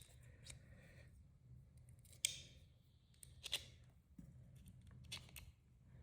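Faint, sparse metallic clicks and scrapes of a hand pick working under the slip joint behind a pocketknife blade. The clearest come about two, three and a half and five seconds in.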